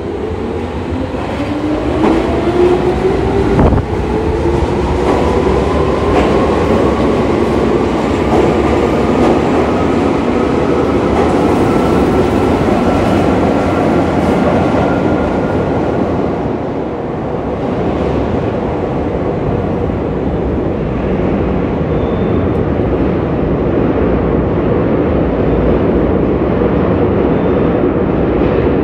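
Nagano Electric Railway 8500 series electric train pulling away into an underground tunnel: its traction motors whine, rising steadily in pitch as it gathers speed over about sixteen seconds, over a steady rumble of wheels on rail. A sharp knock comes about four seconds in.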